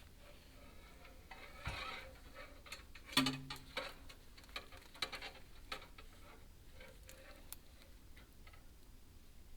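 Chimney inspection camera and its push rod tapping and scraping against the clay flue tiles as it is worked up the flue: faint, irregular light clicks, with a louder knock about three seconds in.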